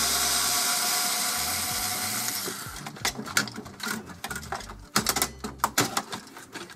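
Cordless screwdriver running for about two and a half seconds as it backs out a small screw, then stopping. It is followed by a scatter of sharp plastic clicks and knocks as the soundbar's casing and boards are pulled apart.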